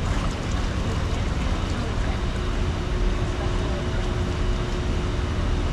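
Steady low rumble and hiss of a ride boat gliding along its water channel.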